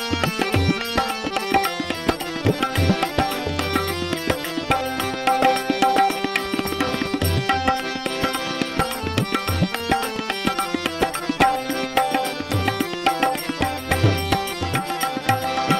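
Instrumental interlude of a devotional bhajan: a harmonium plays a held melody over rapid drum strokes, with deep low drum booms a few times.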